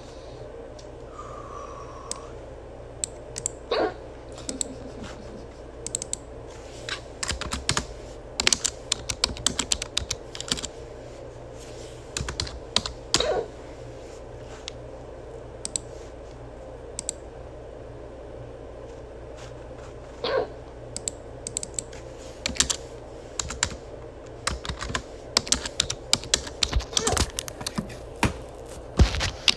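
A person hiccuping three times, several seconds apart, amid bursts of rapid clicking and tapping.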